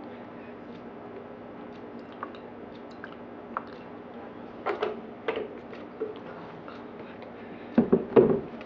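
Scattered small clicks and knocks from juice containers being handled, with a couple of louder knocks about five seconds in and a cluster of louder bumps near the end.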